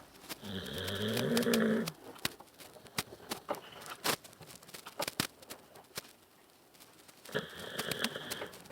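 An animal snoring loudly: one long snore rising in pitch about half a second in, and a fainter one near the end, with scattered light clicks in between.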